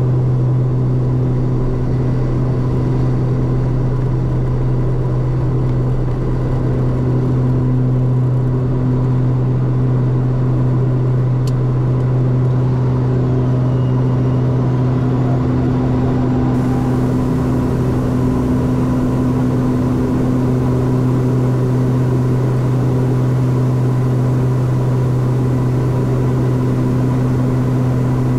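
Beechcraft King Air F90's twin turboprop engines and propellers at takeoff power through the takeoff roll and initial climb, heard inside the cockpit as a loud, steady, deep propeller drone with a thin hum above it.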